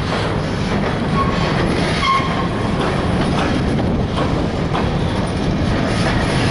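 Freight train rolling past close by: a steady rumble of steel wheels on rail, with faint clicks over the rail joints and a couple of brief wheel squeals about one and two seconds in.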